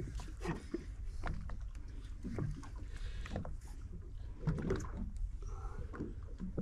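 Water slapping and lapping against a boat's hull over a steady low rumble, with scattered small knocks and clicks.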